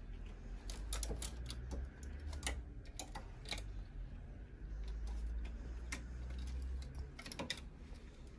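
Handling noise: irregular light clicks and knocks over a low rumble.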